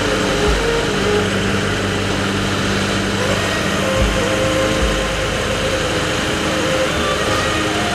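Armored military jeep's engine idling steadily, with a few brief low bumps.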